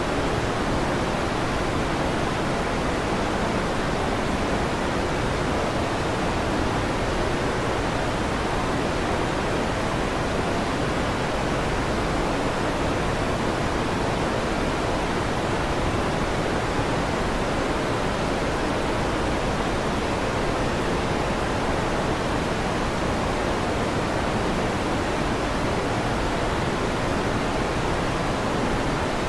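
Electric fan running with a steady, even whoosh of air noise, heavier in the low and middle range; no thunder claps in this stretch.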